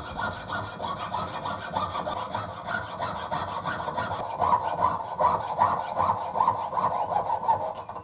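Jeweler's saw cutting through sterling silver sheet: the fine steel blade rasps in rapid, even strokes, several a second.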